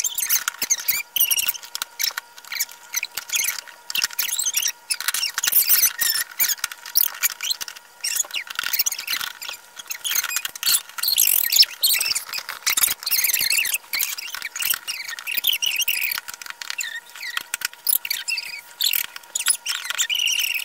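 Fast-forwarded audio of a plastic toy being put together: voices sped up into high-pitched, squeaky chatter mixed with rapid clicking and rattling of plastic parts.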